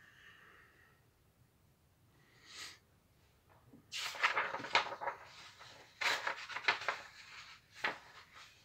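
A sheet of A4 printer paper rustling and crackling as it is lifted and folded in half, with a dense run of crinkling in the middle and a sharp swipe near the end as the fold is pressed down.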